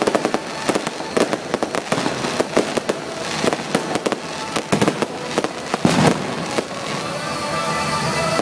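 Aerial fireworks bursting overhead: a dense run of sharp cracks and pops, heaviest about six seconds in. The cracks thin out near the end as music comes in underneath.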